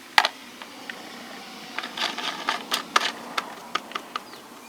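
Top of a plastic hummingbird feeder being fitted on: one loud click near the start, then a run of sharp clicks and light taps from about two seconds in, over a steady faint hiss.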